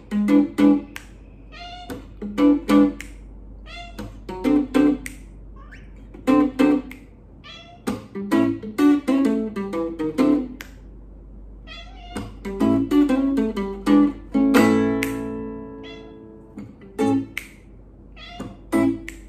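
Electric guitar played through a small combo amp in a slow blues groove, with a cat meowing in short calls between and over the phrases. About three-quarters of the way through, a chord rings out long.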